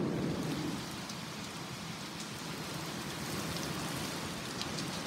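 Heavy storm rain pouring down as a steady, dense hiss, which comes in suddenly louder right at the start.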